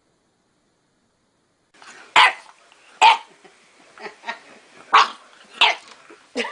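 A dog barking in sharp single barks, about five loud ones with softer barks between, starting after a couple of seconds of silence.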